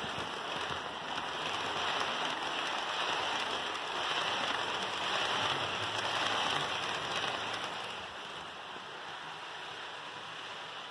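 HO scale model passenger cars rolling past close by on the track: a steady rushing hiss of small metal wheels on the rails, easing off a little near the end.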